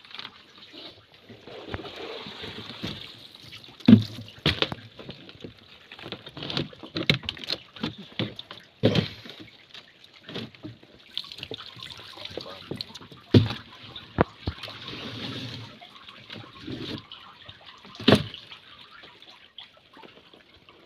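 Water sloshing and splashing as wet plastic crates of live lobsters are handled on a boat, with several sharp knocks of crates set down on the hull.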